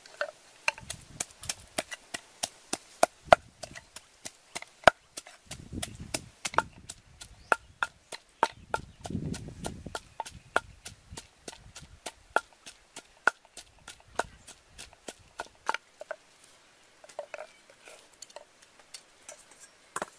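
Wooden pestle pounding in a wooden mortar: sharp, regular knocks about three a second, thinning to a few sparser knocks over the last few seconds.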